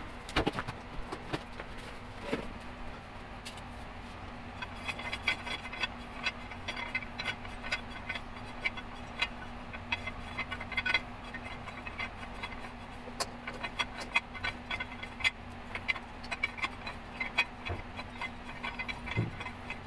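Light, irregular metallic clicks and rattles of a coilover being handled and its threaded collar turned by hand, beginning about five seconds in, over a faint steady hum.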